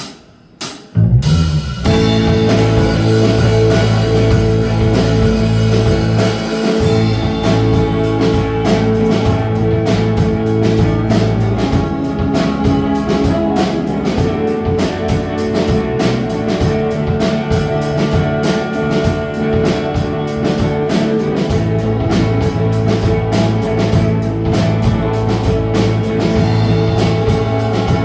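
A rock band playing live, with guitar and drums, kicking in about a second in after a few short clicks.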